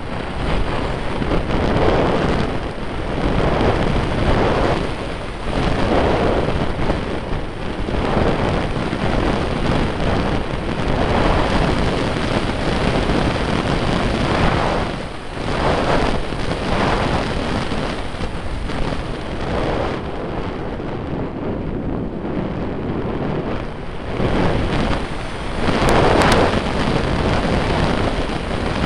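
Wind buffeting the microphone of a camera carried aloft on a windy day: a loud, rumbling rush that swells and eases in irregular gusts.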